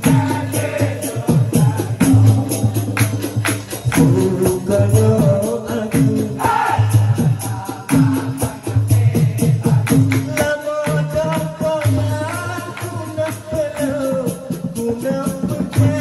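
Malay traditional percussion music: a barrel drum (gendang) and a gong keep up a steady rhythm while a group sings, with the sung melody coming forward in the second half.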